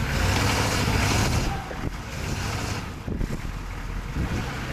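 Hummer H1 engine running with a steady low rumble, under heavy wind noise buffeting the microphone.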